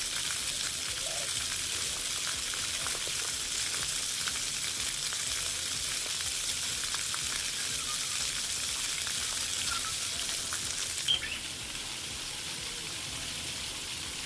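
Splash pad water jets spraying and pattering onto the wet ground: a steady, crackly hiss. About 11 seconds in, a brief sharp splash stands out, and after it the spray is a little quieter.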